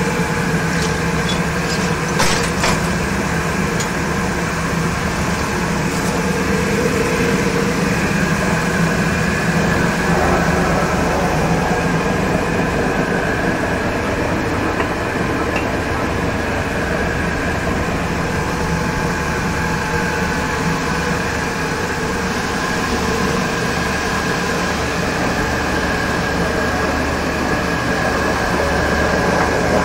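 Multi-blade marble resizing machine running steadily, its water-cooled circular saw blades cutting through a marble slab: a constant machine drone with hiss and a few steady tones.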